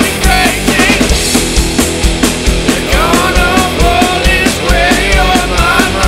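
Rock song by a band, a punk-rock sound with a steady drum beat, and a sung melody coming in about halfway through.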